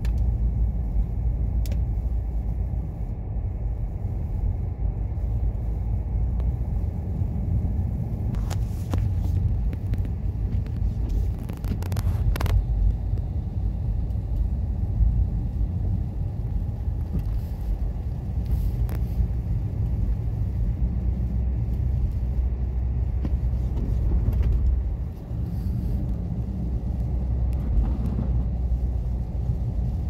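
Steady low rumble of a rear-wheel-drive Dodge car driving on a snow-covered road, heard from inside the cabin: engine and tyres on packed snow, with a few brief knocks and a short lull near the end.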